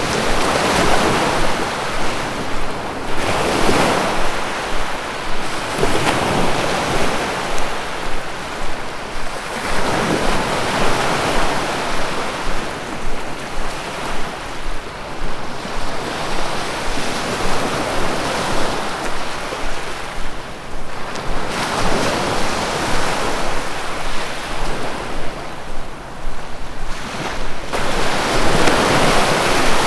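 Sea waves breaking and washing on a shore, a steady surf noise that swells and ebbs every few seconds, with some wind.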